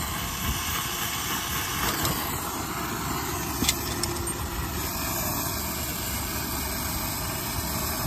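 Steady hissing roar of a brazing torch flame heating copper distributor tubes to sweat them off a heat pump's expansion valve, with a brief click about three and a half seconds in.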